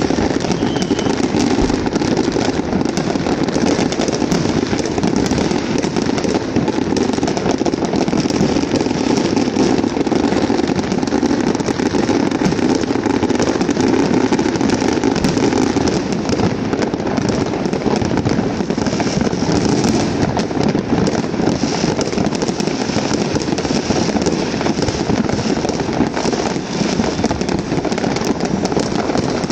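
Many fireworks going off at once: a dense, unbroken crackle of overlapping bangs and pops at a steady loud level, with no pause.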